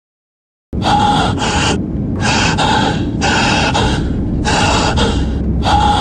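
A man's ragged gasping breaths, about one a second, over a steady low rumble, starting suddenly after a moment of dead silence: Superman, hurt, struggling for breath.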